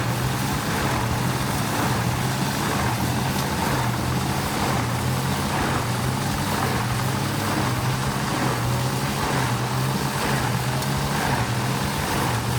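Wood chipper running steadily: a constant low engine hum with an even rushing noise above it.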